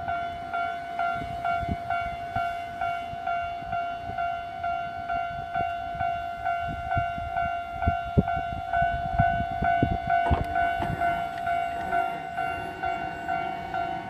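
Japanese railway level-crossing warning bell ringing steadily at about two strokes a second. In the middle a train passes, its wheels knocking over the rail joints.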